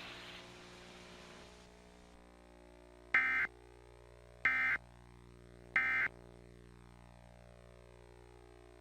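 Emergency Alert System end-of-message signal: three short bursts of shrill digital data tones (the SAME "NNNN" code), each about a third of a second long and spaced just over a second apart, marking the end of the test. A faint steady hum lies underneath.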